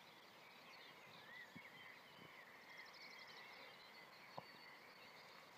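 Near-silent open-air ambience with faint, distant birds chirping, including a quick trill about three seconds in, and one soft click a little later.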